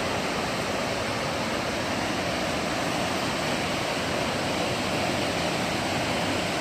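Steady rush of flowing water, like a creek or falls.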